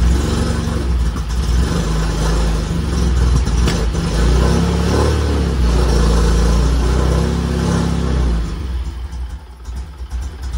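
Fiat X1/9's inline four-cylinder engine running unevenly, blipped by hand at the carburettor so its speed rises and falls, then dropping back toward idle near the end. It runs rough because its ignition timing is off, which the owner says needs setting with a timing light.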